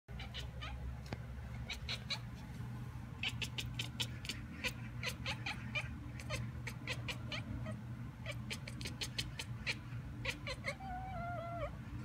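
Tabby cat chattering at a magpie outside the window: rapid, irregular clicking bursts from its jaw, with a short wavering chirp near the end, as it mimics the bird's call.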